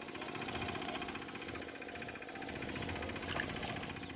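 A motor or engine running steadily with an even, pulsing hum. About three and a half seconds in there is a short splash as a hooked fish thrashes at the water's surface.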